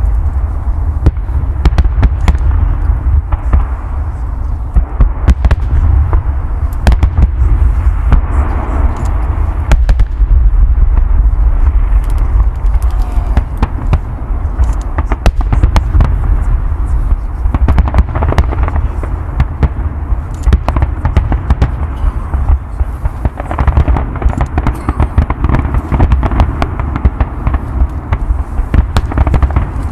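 Fireworks display: a dense, continuous barrage of shell bursts and crackling reports over a heavy low rumble.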